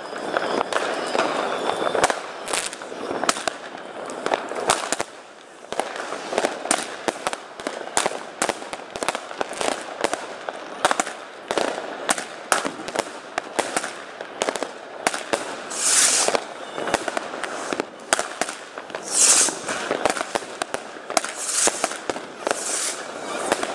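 Consumer fireworks going off: a rapid run of sharp bangs and crackles as shots rise and burst, with three loud hissing bursts in the second half.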